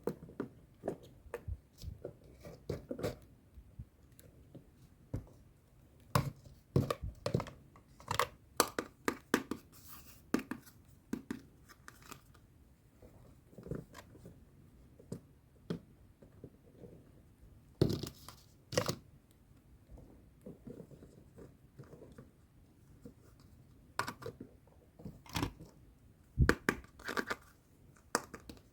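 Toy packaging and small plastic pieces handled during unboxing: irregular crinkling, tearing and clicking, some louder snaps standing out now and then.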